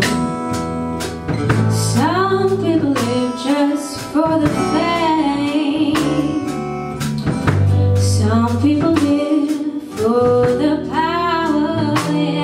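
A female vocalist singing a slow pop ballad with held, wavering notes, backed by strummed acoustic guitars.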